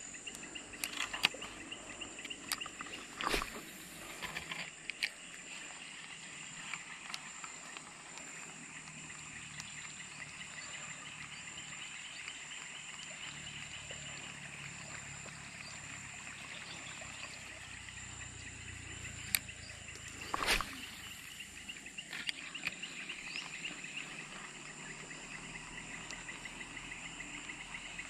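Insects chirring steadily: a constant high whine over a fast, pulsing trill. A few short, sharp clicks and rustles cut through, the loudest about 20 seconds in.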